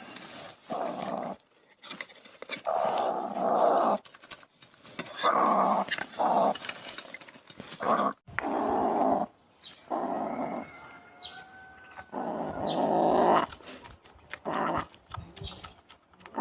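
An animal growling in about a dozen rough bursts, each up to about a second long, with short pauses between them.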